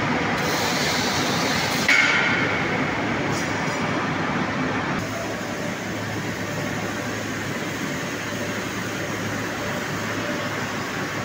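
Hot steel rolling mill running: the steady clatter and drone of the roll stands and their drive motors. About two seconds in comes a sudden bang followed by a brief high ringing. From about five seconds the noise settles into a slightly quieter, even hum.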